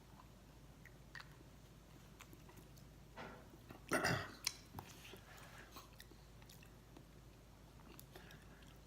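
Faint mouth sounds of someone tasting pepper tincture on the tongue: lips and tongue smacking, with one louder, short mouth sound about four seconds in.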